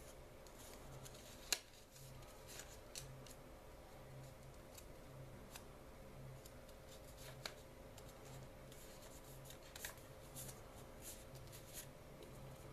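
Sheet of origami paper crinkling and crackling in the hands as it is folded and creased, with scattered crisp clicks, the loudest about a second and a half in.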